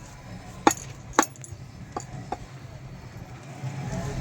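Knife chopping fish on a cutting block: two sharp strikes in the first second or so, then two fainter ones, after which a steady background noise rises near the end.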